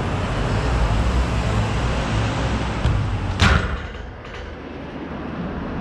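A steady rumbling noise, then a single sharp knock about three and a half seconds in, after which it goes quieter.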